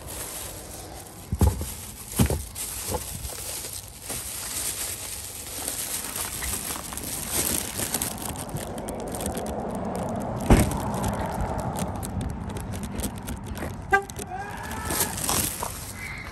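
A plastic takeout bag being lifted out, with a couple of knocks as it is handled, then a steady outdoor traffic hiss and handling noise while walking, broken by a sharp knock about ten seconds in.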